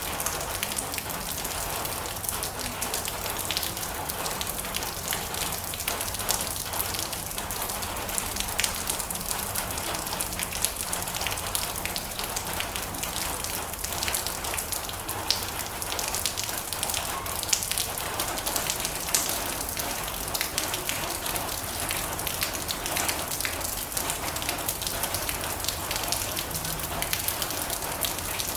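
Steady heavy rain drumming on a metal roof, a dense hiss thick with countless small sharp drop impacts.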